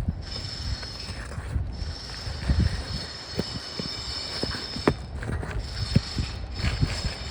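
Flat pry bar working under asphalt shingles: irregular scraping, clicks and knocks as it hunts for the roofing nails of the top row and prises them up.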